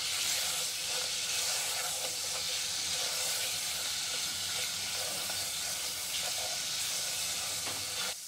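Beef chunks and ginger-garlic paste frying in hot ghee in a pot, a steady sizzle, while a spatula stirs them: the meat being seared (bhuna) at the start of cooking.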